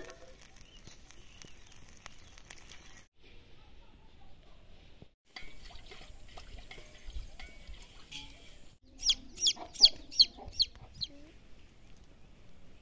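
A chicken clucking: a quick run of about seven sharp, high clucks over two seconds, starting about nine seconds in.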